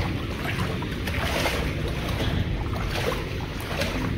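Shallow water running along the floor of a corrugated metal culvert pipe, with wading boots splashing through it at about two steps a second.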